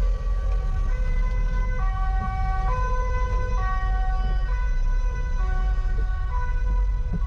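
Two-tone emergency siren alternating between a high and a low note about once a second, over the steady low rumble of the vehicle carrying the camera.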